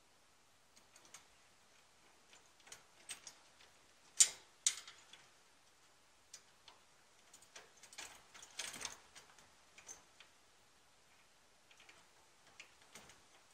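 Hand screwdriver driving a screw to fasten a car grille to its mounting brackets: scattered light clicks and short scrapes, the sharpest two about four seconds in and a quick run of scraping a little past the middle.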